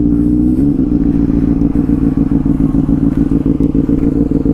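Benelli 600i's inline-four engine idling loud through an SC Project slip-on exhaust. The revs rise briefly in the first second, then settle to a steady, fast-pulsing idle.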